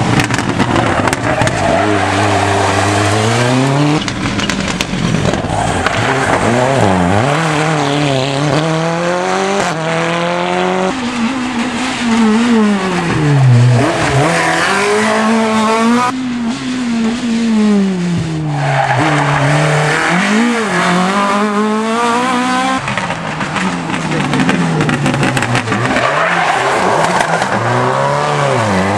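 A succession of rally car engines taking a hairpin bend, one car after another. Each engine drops in pitch as the car brakes into the bend, then revs up hard through the gears as it accelerates away.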